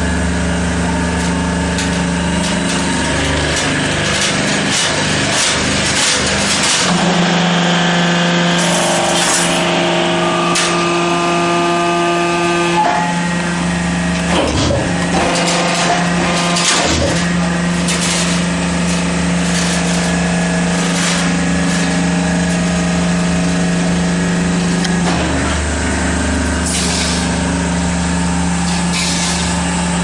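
Semi-automatic hydraulic crimped wire mesh machine running: a steady motor and pump hum whose tone shifts several times as the load changes, with a few sharp knocks from the machine's working parts.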